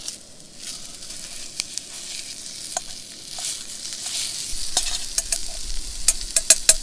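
Hot sausage sizzling in a frying pan. A steady hiss runs throughout, with sharp crackles and pops coming more often in the last couple of seconds.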